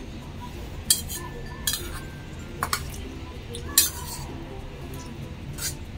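Metal spoon clinking and scraping against a stainless steel bowl while scooping rice: about five sharp clinks spread out, a couple of them leaving a short ring from the bowl.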